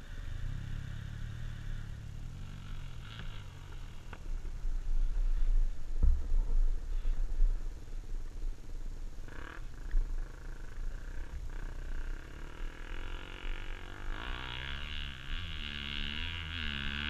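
Dirt bike engine running, under a low rumble of wind on the microphone; from about two thirds of the way in it is revved, its note rising and falling and growing louder.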